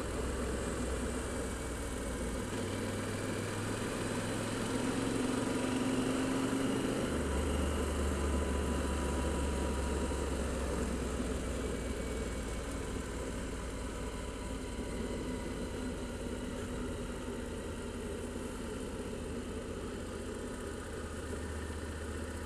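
Adventure motorcycle cruising on an open road: a steady engine drone with wind and road noise over it. The engine note shifts a little twice, a couple of seconds in and again a few seconds later.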